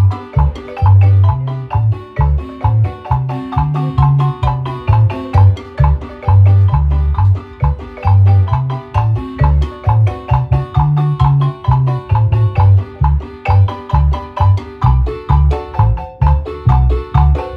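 Guatemalan marimba music: mallets strike wooden bars in a fast, rhythmic melody over deep, pulsing bass notes.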